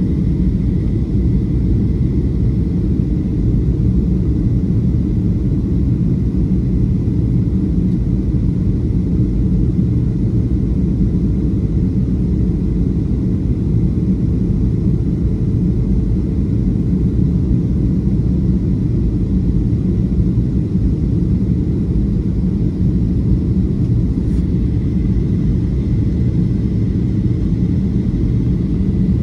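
Steady cabin rumble of a Boeing 737-500 on approach, heard from a window seat over the wing: engine and airflow noise with a faint steady whine above it.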